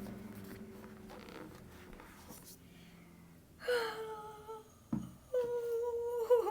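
A woman's voice making two drawn-out, wordless excited vocal sounds, like a held "ooh" or hum, about four and five and a half seconds in, with a short knock between them. Before that only a faint, fading hum.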